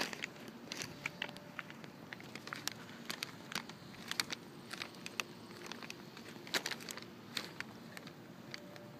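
Rain falling: a soft steady hiss with irregular sharp taps of individual drops landing close by, several a second.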